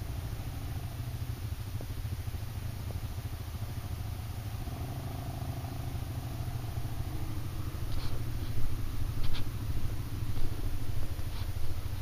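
Quad ATV engines idling steadily. From about eight seconds in, one engine is revved in uneven bursts as the quad moves off.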